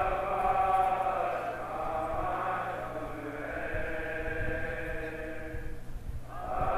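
Men chanting a noha, a Shia Muharram lament, into a microphone, the voices drawn out in long held phrases with a short break near the end before the next line starts.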